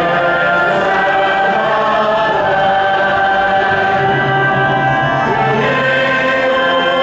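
A choir singing a slow hymn in long held notes, several voices together.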